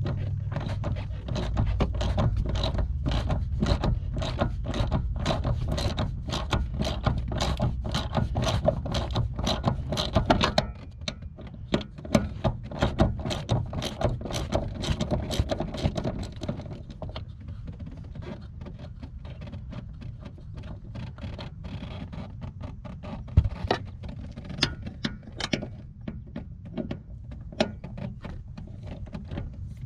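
A hand socket ratchet clicking rapidly as it backs out car door bolts, with a low rumble of handling. About ten seconds in the clicking turns sparser and quieter.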